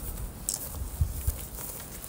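Footsteps on dry grass and leaf litter, with a few soft thuds and a brief rustle.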